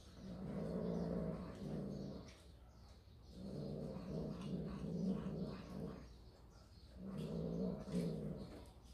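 A cat growling low while it eats a freshly caught sparrow, three long growls of about two seconds each: a cat guarding its kill from another cat close by.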